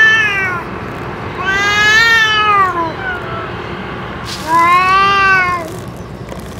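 Stray cats yowling at each other in a standoff: long drawn-out calls that rise and then fall in pitch, one trailing off at the start, then two more of about a second and a half each.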